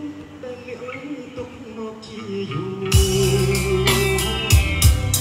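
Song played loudly through a BOOM Sound Town party speaker with subwoofer. A soft opening, then about three seconds in heavy bass and drum hits come in.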